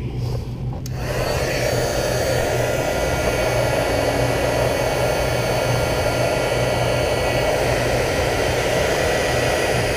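Heat gun switched on about a second in, then blowing steadily: a continuous rush of hot air over the hum of its fan motor, shrinking heat-shrink tubing onto a crimped wire connector.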